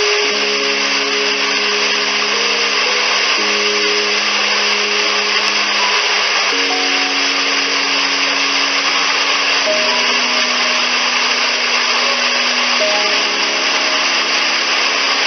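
Steady rush of a waterfall, with slow ambient music of sustained chords that change about every three seconds.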